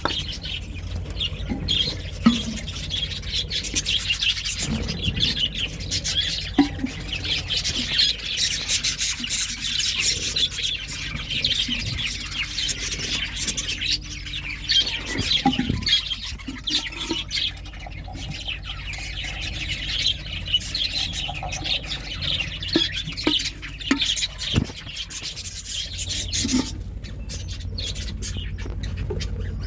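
Budgerigars chattering and chirping continuously in rapid, overlapping calls, thinning out near the end, over a steady low hum and a few soft knocks.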